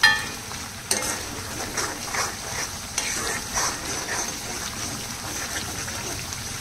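Green masala paste frying in oil in a pan, sizzling steadily while a spoon keeps stirring and scraping through it. The masala is being fried down to cook out its rawness before the keema goes in. It opens with a sharp metallic clink.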